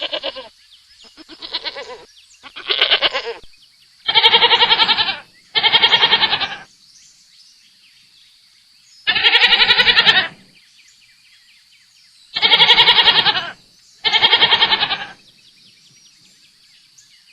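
Domestic goat bleating repeatedly: about seven loud, wavering bleats of around a second each, in twos with short pauses between.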